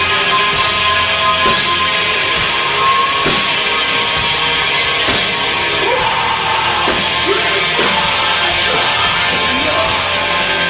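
Loud heavy rock music played by a band: distorted electric guitars over a steady run of drum hits.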